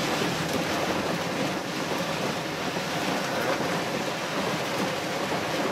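Heavy rain pouring down in a thunderstorm: a steady, dense hiss with no let-up.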